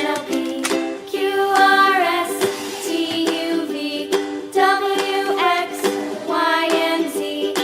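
Upbeat children's background music with a sung or whistled-style melody and a light plucked accompaniment.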